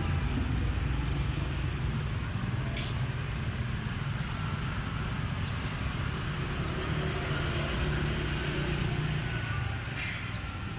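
Steady low rumble of street traffic, cars and motorbikes passing, with two short hisses, one about three seconds in and one near the end.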